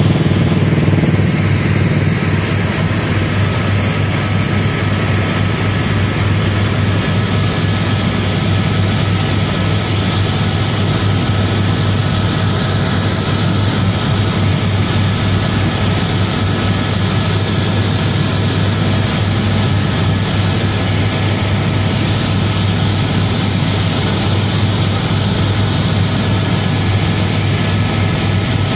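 Tour helicopter in flight, heard from inside the cabin: the rotor and turbine engine make a loud, steady drone with a rapid low throb and faint steady whining tones above it.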